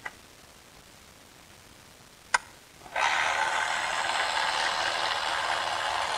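A sharp click, then a Milwaukee M12 cordless ratchet running steadily for about three seconds as it spins out a 10 mm water-pump bolt.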